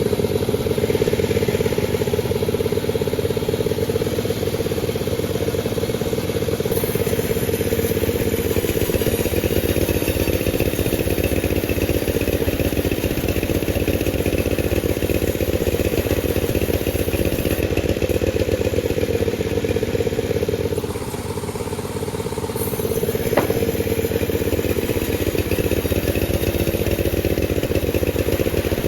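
Panda36 chainsaw running at high speed, sawing through a durian log. Its engine eases off briefly about two-thirds of the way through, then picks back up, with a single sharp click as it does.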